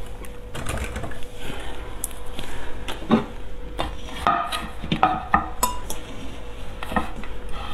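Ceramic plate clinking and knocking against a wooden table as it is handled and set down, a scattered series of sharp knocks, some with a short ring.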